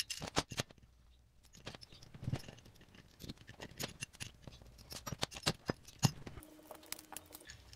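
Steel gear-puller legs, jaws and bolts clicking and clinking together as they are handled, the puller being reworked into a two-legged puller. Scattered light metal clicks.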